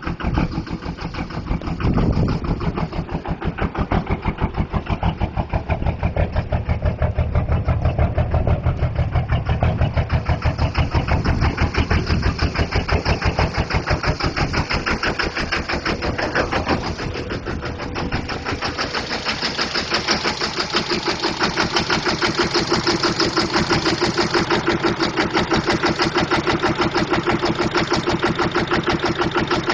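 Cummins diesel truck engine with twin turbos running with a rhythmic, uneven lope, the sign of a bad injector. About two-thirds through, the tone changes: less low rumble and a higher whine on top.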